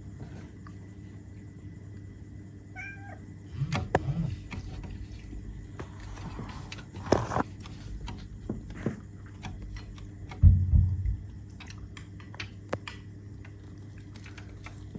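A cat gives a short, high meow about three seconds in, among scattered soft clicks and a few low thumps.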